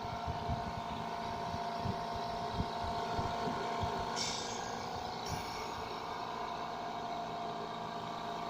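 Oxygen concentrator running: its compressor motor gives a steady hum, and about four seconds in a short hiss of air vents from the machine.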